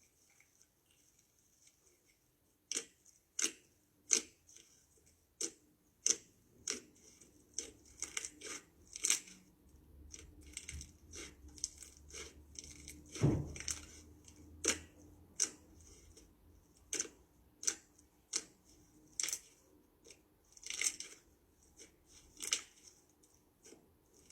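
Crisp clicks and snips from hands working balloons and slime, coming irregularly about once or twice a second, with one heavier thump midway.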